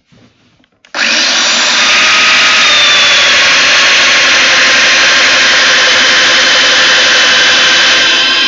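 Festool Domino DF 700 joiner, hooked up to a dust extractor, switching on abruptly about a second in and running loud and steady while held against a timber beam to cut a mortise. Its pitch shifts slightly near the end.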